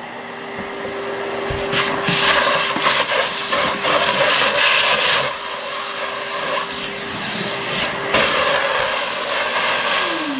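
Shop-Vac Quiet Series 5-gallon wet/dry vacuum running: a steady motor tone under a rush of air that swells and eases as the nozzle is worked over a tile floor. Near the end the motor spins down, its pitch falling.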